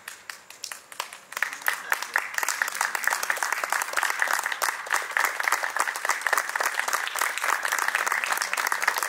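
A small audience applauding: a few scattered claps at first, then steady applause from about a second and a half in.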